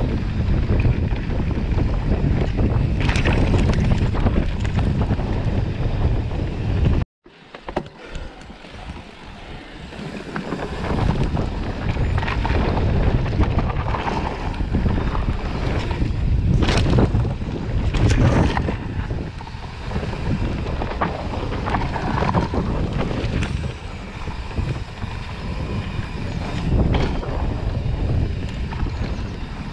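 Wind buffeting the microphone on a moving mountain bike over a dirt forest trail, mixed with tyre noise and scattered knocks and rattles from bumps. The sound drops out for a moment about seven seconds in, then picks up again.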